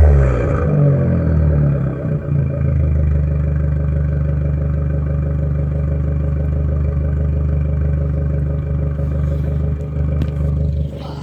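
Fiat Grande Punto 1.4 T-Jet turbo four-cylinder engine through a straight-piped exhaust, its revs falling back in the first second and then idling steadily.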